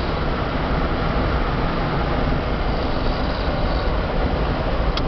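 Steady road and engine rumble heard inside the cabin of a moving car, heaviest in the low end.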